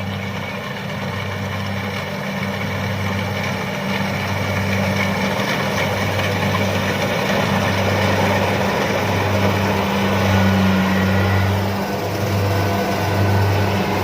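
Rice combine harvester's engine running steadily with a constant hum, growing gradually louder over the first half.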